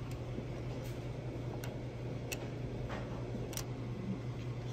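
A handful of small, sharp metallic clicks at irregular intervals as the electronic ignition rotor and advance unit are worked onto the camshaft in a Shovelhead's ignition cavity. A steady low hum runs underneath.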